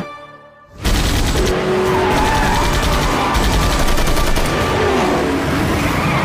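Movie action sound: after a brief hush, sudden loud rapid gunfire with bullets striking a car, mixed with a car engine and skidding tyres.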